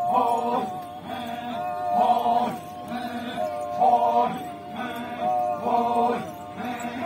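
A group of voices chanting a traditional Naga folk dance song in unison: short phrases on a steady note, repeating about once a second.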